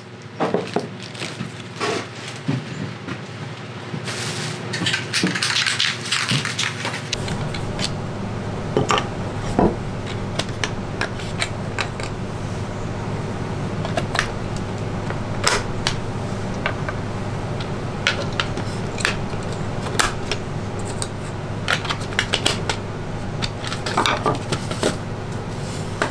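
An aerosol spray paint can sprays in a hiss lasting about three seconds, after scattered rattling clicks. From about seven seconds in, sharp clicks and clatter continue over a steady low hum.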